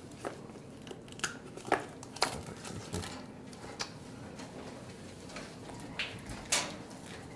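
Scattered light knocks and clicks, about eight over several seconds, from a macaque moving in its stainless-steel cage and a plastic tray of ice cups being handled, against a steady small-room hum.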